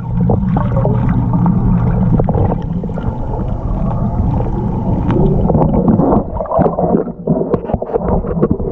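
Muffled water noise picked up by a camera submerged in a fish pond: water moving and gurgling against the camera, with a low steady hum for about the first two seconds, then many scattered clicks and crackles.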